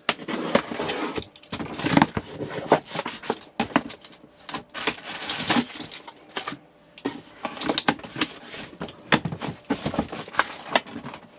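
Cardboard box and packaging being opened and handled: irregular rustling, crinkling and light knocks.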